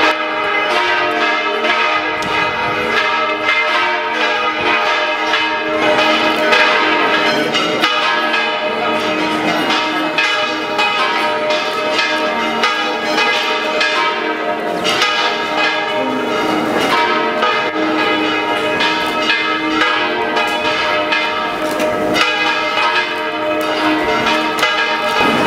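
Church bells ringing a continuous peal, many strokes a second overlapping into one another.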